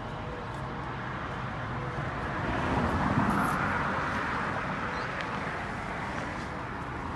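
A vehicle passing by: a steady rushing noise that swells about two and a half seconds in, peaks, then fades over the next couple of seconds, over constant outdoor background noise.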